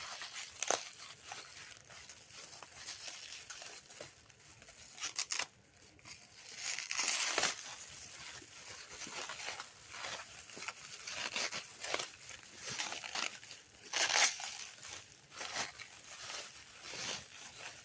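Packing material being crinkled and torn by hand as an item is unwrapped, a steady run of rustles and crackles with louder swishes about seven and fourteen seconds in.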